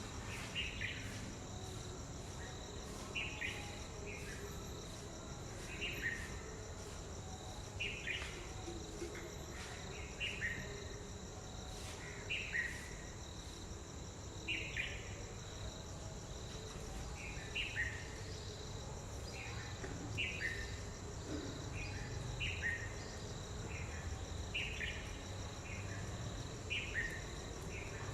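A bird calling short, falling notes, often in pairs, repeated about every two seconds, over a steady chorus of crickets.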